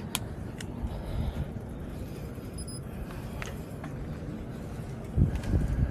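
Low rumbling ride noise from cycling, with a few light clicks and a couple of heavier low thumps near the end.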